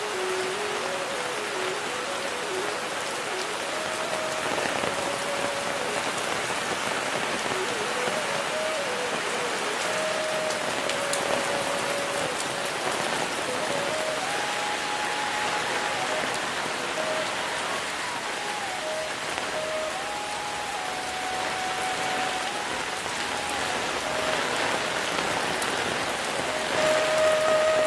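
Heavy rain falling steadily, with a faint slow melody of held single notes over it that grows louder near the end.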